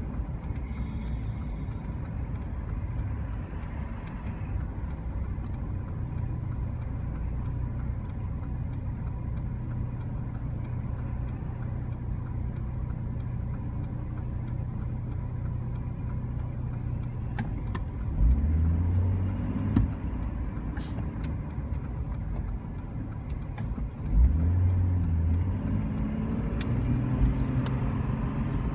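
Motor vehicle running with a steady low rumble and road noise, its engine note rising briefly twice, about two-thirds of the way through and again a few seconds later.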